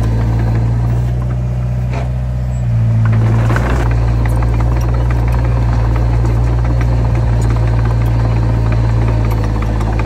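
Heavy diesel engine of earthmoving machinery running steadily. It grows louder about three seconds in, with a couple of metallic knocks.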